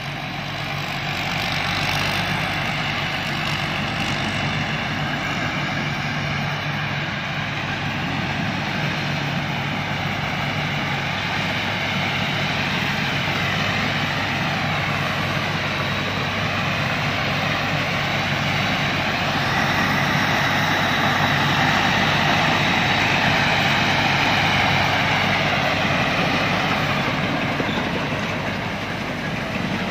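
Rice combine harvester running steadily, its engine a continuous drone with a low hum. It grows a little louder about twenty seconds in and eases off near the end.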